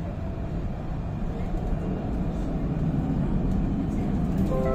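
Tram running along its rails, heard from inside the car: a steady low rumble of wheels and running gear that builds slightly as it goes. Near the end a held chord of several steady tones comes in.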